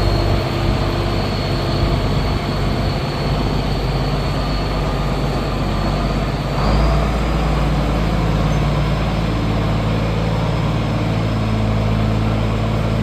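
Diesel farm tractor engine running steadily, with a faint high whine over it in the first half and a slight change in the engine note about seven seconds in.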